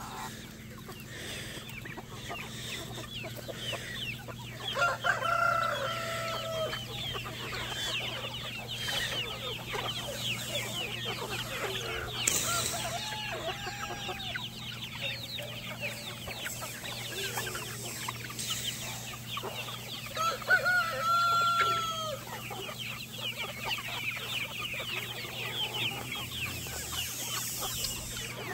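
Large free-range flock of chickens clucking steadily, with a rooster crowing loudly twice: about five seconds in and again about twenty seconds in.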